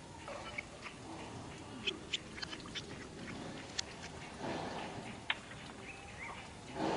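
Macaque monkeys making scattered short, sharp squeaks and chirps, with a rougher, louder noise near the end.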